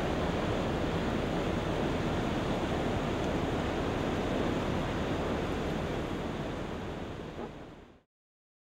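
Steady noise of ocean surf with wind, fading away about six seconds in and cutting off to silence about two seconds later.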